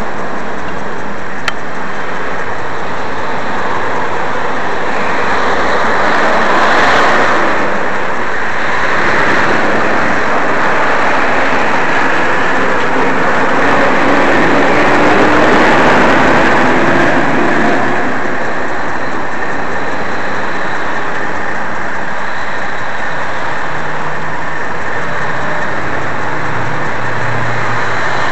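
Steady, loud vehicle noise that swells twice and eases off in the last third, with a single sharp click about one and a half seconds in.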